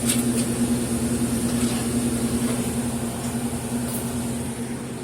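Refrigeration equipment running with a steady low electrical hum, with a few light clicks about the first half second.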